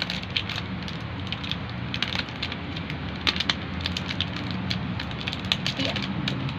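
Thin clear plastic food wrapping crinkling and crackling in many short, irregular clicks as it is handled and unwrapped.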